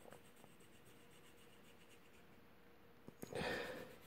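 Faint scratching of a blue pencil drawing on paper, with a brief louder noise about three and a half seconds in.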